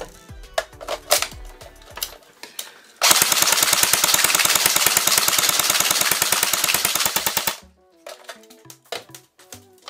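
Airsoft gun firing one rapid full-auto burst lasting about four and a half seconds, starting about three seconds in and cutting off suddenly. Background music with a beat plays around it.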